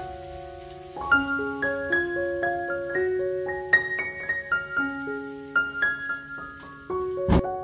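Background piano music: a slow melody of single notes over held lower notes. One sharp click comes near the end.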